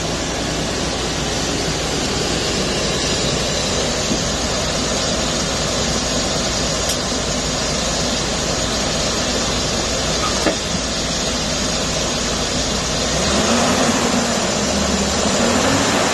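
2002 GMC Savana 1500 van engine running steadily at raised revs with the throttle held open, growing somewhat louder near the end. The tester judges it a good motor and transmission.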